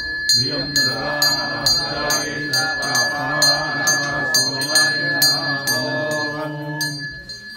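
Puja hand bell rung steadily during the arati, a bright strike a little over twice a second, over a slow held melody. The ringing stops near the end.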